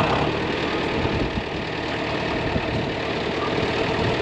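Strong storm wind buffeting the microphone: a steady rushing rumble.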